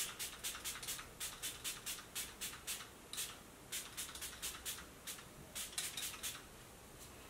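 Catrice setting-spray mist bottle pumped over and over at the face: short hissing sprays, about three to four a second, with a brief pause around three seconds in, stopping about a second before the end.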